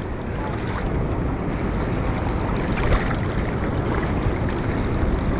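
Steady rushing noise of water pouring over a spillway, with wind buffeting the microphone.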